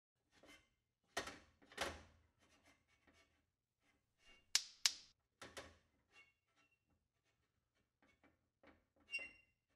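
Paper cut-outs being handled on a tabletop: faint scattered rustles and light taps, with two sharper clicks close together about halfway through and another near the end.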